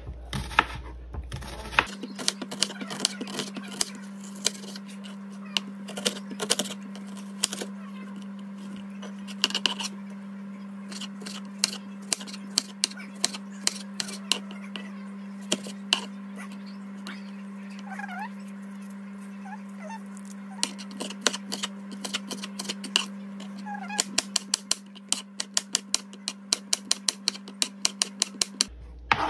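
Chef's knife slicing onion, tomato and garlic on a plastic cutting board: irregular knocks of the blade on the board, turning to quick, even chops about three a second near the end. A steady low hum runs underneath.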